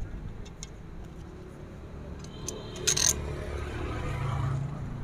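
Small metal parts clicking as chainsaw muffler bolts and tools are handled, with a few light clicks near the start and one sharp metallic clink about three seconds in, over a low background rumble.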